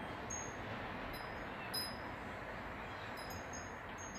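Homemade hanging tube wind chime swaying, its thin tubes striking one another in a few scattered, high tinkling notes, the clearest just under two seconds in and a cluster near the end. A steady hiss of background room noise lies underneath.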